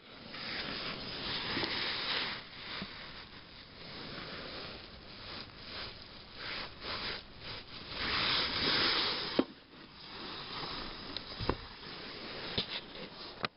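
Close handling noise: rustling and scraping that swells and fades as the oven door's foil-covered panel is handled, with several sharp clicks in the last few seconds.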